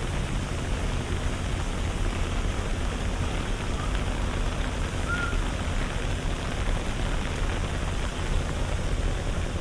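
Steady rain ambience: an even hiss of rain over a low rumble, with a couple of faint short chirps about four and five seconds in.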